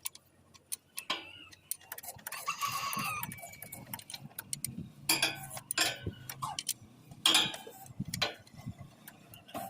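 Scattered metallic clicks and taps of hand tools working the bleed point of an excavator's diesel fuel system, with the engine off, plus a brief call in the background about two to three seconds in.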